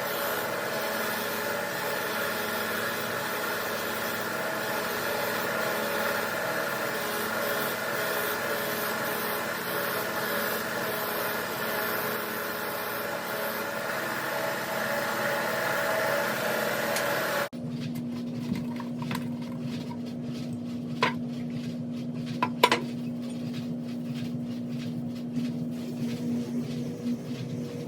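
An electric power tool runs steadily with a rushing hiss, working rust off a steel pipe wrench, and cuts off abruptly about two-thirds of the way through. A steady low hum follows, with a few sharp metallic clinks.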